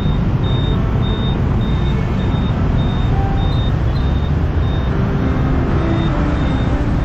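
Steady low rumble of a motorbike ride in dense scooter and car traffic, picked up by a helmet-mounted camera. A thin high electronic beep repeats a little under twice a second and fades out near the end.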